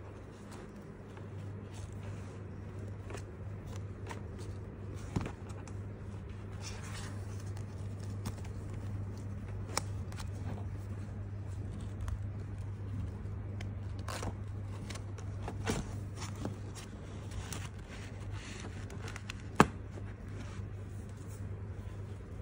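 Hands handling a Pokémon Scarlet & Violet 151 card binder, its cover and elastic closure strap: rustling and scraping with scattered sharp clicks and taps, the loudest near the end, over a steady low hum.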